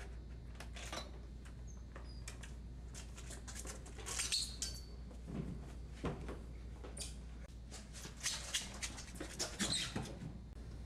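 Scattered squeaks and scuffs of people moving on a hard polished floor, over a low steady hum, with the busiest stretches about four seconds in and again in the last few seconds.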